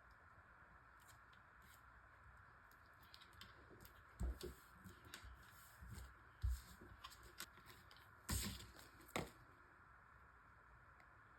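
Paper and card being handled: scattered light taps and rustles with a few louder soft knocks between about four and nine seconds in, as a glued card is lined up and pressed onto a journal page.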